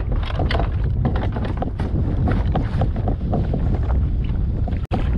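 Wind buffeting the microphone, with water splashing and slapping beside a kayak as a hooked speckled trout thrashes at the surface.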